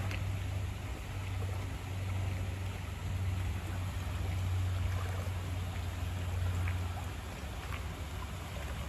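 A steady low hum under an even hiss of running, trickling water, with a few faint ticks scattered through it.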